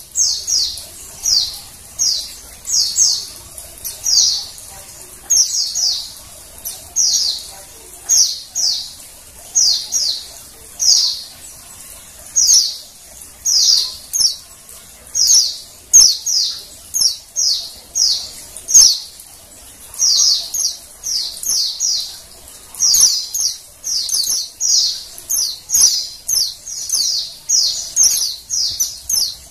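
Female white-eye (pleci) calling: short, high chirps repeated about once or twice a second, sometimes in quick pairs. These are the female calls that keepers play as a lure to get male white-eyes singing.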